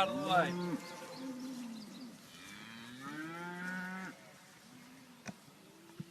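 Cattle mooing: several calls, one overlapping the next, the longest about halfway through and a fainter one near the end.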